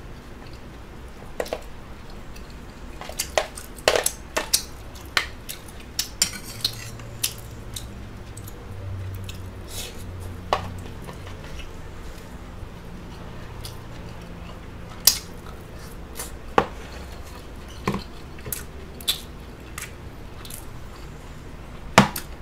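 Metal fork and spoon clicking and scraping against a plastic container of rice while eating, in irregular sharp clicks about once a second, the loudest near the end.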